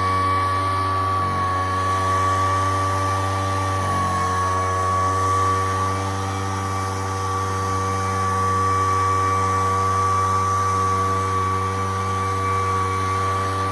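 Poulan Pro backpack leaf blower's two-stroke engine running steadily at high speed, with a high fan whine over the engine drone; the pitch dips briefly twice in the first few seconds.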